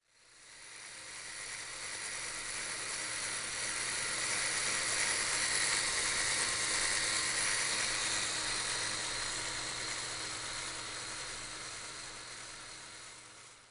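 A steady hissing whir that fades in over the first couple of seconds and fades out near the end.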